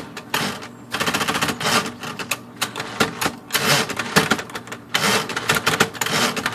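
Smith Corona Coronet Automatic 12 electric portable typewriter being worked: rapid runs of sharp mechanical clacking from the typebars and carriage, in several bursts with short gaps between them.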